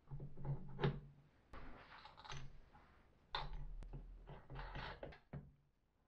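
Wooden disc blanks being handled: a few light knocks as the discs bump together and against the plywood jig, with scraping and rubbing as a disc is slid and pressed onto the jig.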